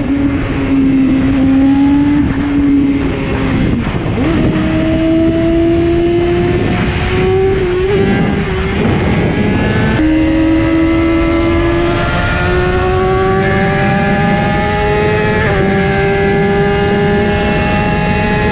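BMW S1000RR's inline-four engine under hard acceleration on a top-speed run, its pitch climbing slowly and dropping back at two or three upshifts. Heavy wind rush on the microphone runs underneath.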